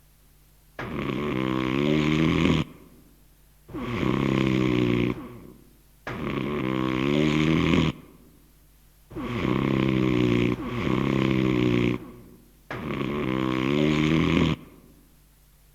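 A person snoring loudly, about six long rasping snores a couple of seconds apart, each bending in pitch, from a recorded novelty sound effect.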